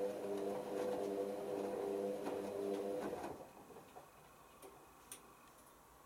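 Hoover Optima OPH714D washing machine's motor turning the drum in the main wash, a steady whine that stops a little over three seconds in as the drum pauses. Then a couple of faint clicks.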